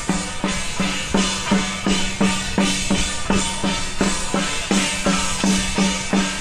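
Percussion music with a steady, even drumbeat of about three beats a second and metallic ringing over the strikes.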